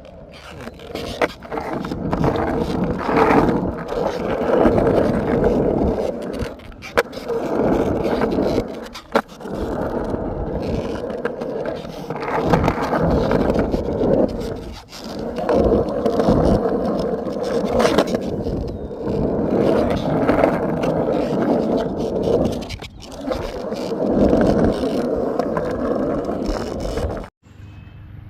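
Skateboard wheels rolling on a concrete skate park surface, the rumble swelling and fading in runs of a few seconds, with occasional sharp clacks of the board. The sound cuts off suddenly about a second before the end.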